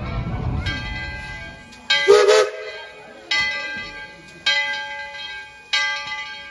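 Locomotive bell on ET&WNC 4-6-0 No. 12 ringing slowly, one clang about every 1.2 seconds, each stroke ringing on as it dies away. A short, loud burst of sound cuts in about two seconds in.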